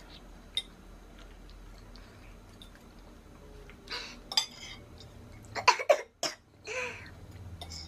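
A woman coughing in short sharp bursts, hardest about six seconds in, from the burn of a very spicy sauce she is eating. A fork clinks lightly against the bowl.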